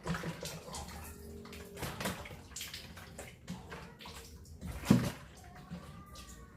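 Water splashing and sloshing in a catfish tub during a water change, with irregular short splashes and one sharp knock about five seconds in.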